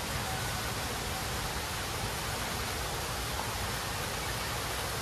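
Steady, even hiss of noise with no distinct events in it.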